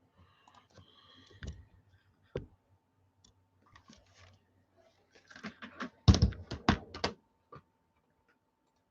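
Scattered clicks and taps of objects being handled on a desk, with one sharp knock early and a quick run of louder knocks and thumps about six seconds in.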